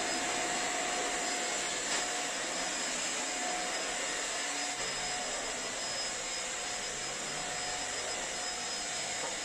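Steady whooshing air noise with a faint high-pitched whine, as from a running fan or motor, starting and stopping abruptly.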